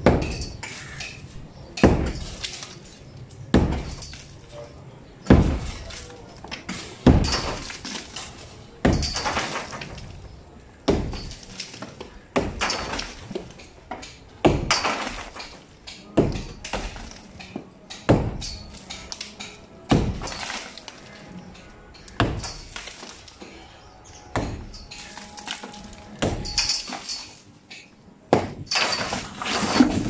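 A sledgehammer striking a plastered concrete-block wall, about one heavy blow every two seconds, each breaking off masonry with a crack and clatter.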